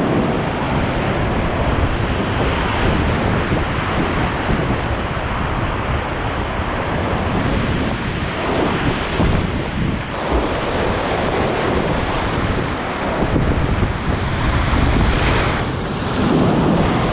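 Whitewater of a river in flood rushing loudly around a kayak running the rapids, with water and wind buffeting the action camera's microphone. A splash over the camera near the end is the loudest moment.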